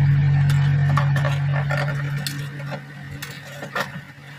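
Scattered light clicks and taps of toys being handled, over a low steady hum that fades away over the first three seconds.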